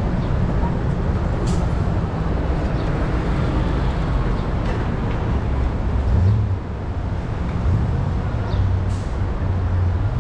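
Steady low rumble of road and traffic noise heard while riding a bicycle, with a couple of short sharp clicks.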